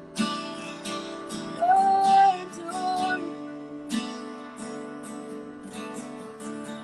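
Acoustic guitar strumming slow chords in a worship song, with a few wordless sung notes held briefly about two seconds in.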